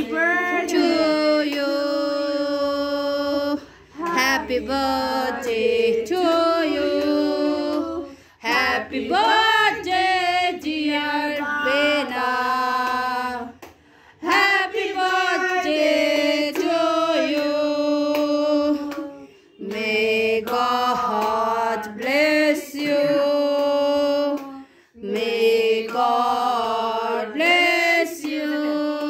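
A group of voices, women and children among them, singing a birthday song together for the cake cutting, in phrases a few seconds long with short breaths between them.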